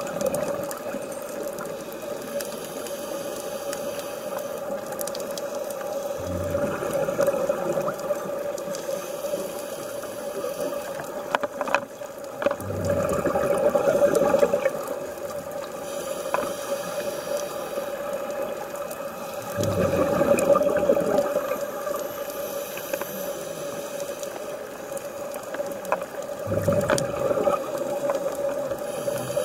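Scuba regulator breathing recorded underwater: bubbling exhalations about two seconds long, five of them, roughly every six to seven seconds, over a steady low hum.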